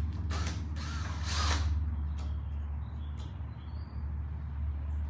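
Two short creaking, scraping noises, the second louder with a brief squeak, as a wall outlet is worked out of its electrical box, followed by a few small clicks, over a steady low hum.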